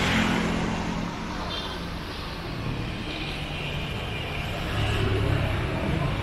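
Street traffic: motor vehicles running and passing on the road, a steady rush of engines and tyres that swells near the start and again about five seconds in.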